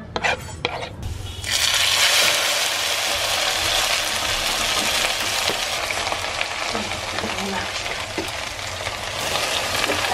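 A few knife strokes on a wooden cutting board, then, from about a second and a half in, hot oil sizzling and bubbling steadily in a black wok over a wood fire.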